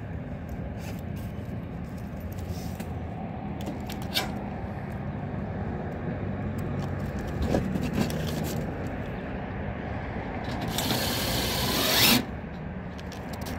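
Cordless drill driving a sheet-metal screw into a roof jack cap, the loudest part a second-and-a-half run near the end with a rising whine, and a few light clicks earlier; the screw spins without grabbing.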